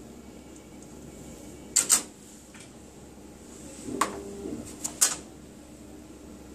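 Plastic Petri dishes being handled and set down: a couple of sharp clicks about two seconds in, a click with a brief scrape near four seconds, and another click near five seconds, over a steady background hiss.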